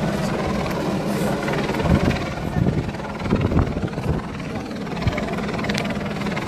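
Steady low rumble, with the indistinct noise of a crowd gathered outdoors.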